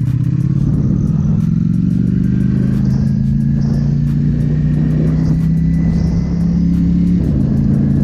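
Ducati Panigale V4 S's V4 engine running under a steady, gradual pull, its pitch slowly rising, with a brief dip about seven seconds in.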